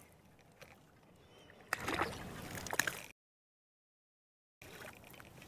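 A hooked crappie splashing and thrashing at the water's surface beside the boat. There are about a second and a half of sloshing with a few sharp splashes, and then the sound cuts off suddenly.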